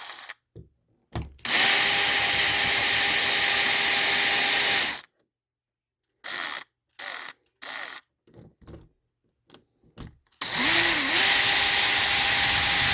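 Power drill/driver running in two steady runs of about three and a half seconds each, with a few short trigger pulls and clicks between them, the second run dipping briefly in pitch as it starts: backing out the screws to open up an old wall switch box.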